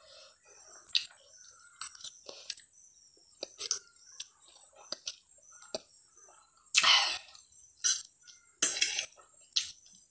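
A person eating instant noodles close to the microphone: soft chewing and mouth clicks, with two louder slurps about seven and nine seconds in.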